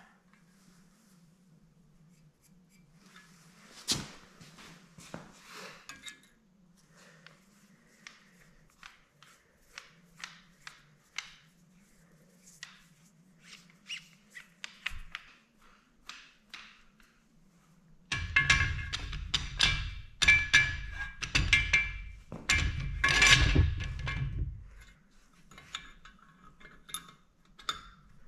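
Light metal clicks and taps as a cam bearing installer tool is fitted into an aluminum LS engine block, with one sharper knock about four seconds in. From about eighteen seconds in come some seven seconds of loud, rapid metal clanking with ringing, and it starts again near the end.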